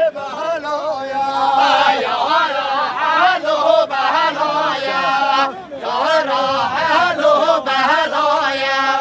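Men singing a Kurdish halay dance song together without instruments, in loud, wavering sung phrases with long held notes.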